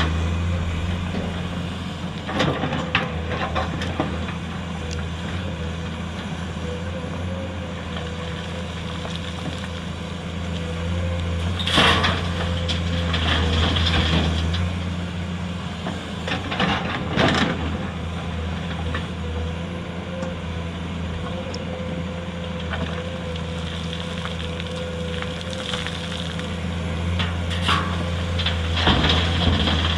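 Komatsu PC210 excavator's diesel engine running steadily, with a few sharp knocks and clatters over the top.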